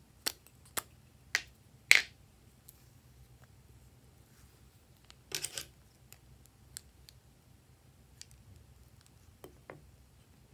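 Sharp plastic clicks from plastic lipstick tubes being handled and their caps pulled off: four clicks in the first two seconds, the last the loudest. About five seconds in comes a short snip of scissors cutting a lipstick, and a couple of light clicks follow near the end.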